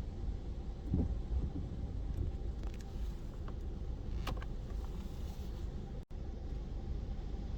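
Steady low rumble of hurricane wind on the microphone, with a few light clicks and a brief cut-out of the sound about six seconds in.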